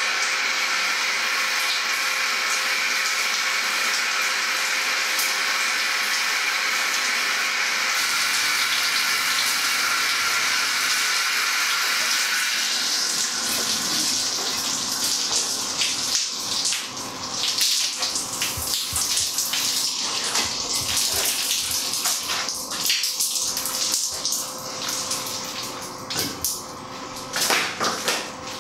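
Water running and splashing while a man washes his hair: a steady stream for about the first dozen seconds, then broken, uneven splashing and dripping.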